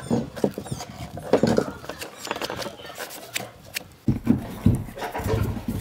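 Small metal clicks, scrapes and rattles as an old electric fan motor is handled and taken apart with gloved hands and a screwdriver, with a few heavier knocks in the last two seconds.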